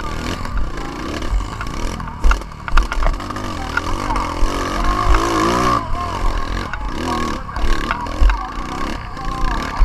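Motocross dirt bike engine heard from a camera mounted on the bike, revving up and down repeatedly as it rides a bumpy dirt track. Sharp knocks and clatter from the bike hitting bumps, loudest a couple of seconds in and again near the end.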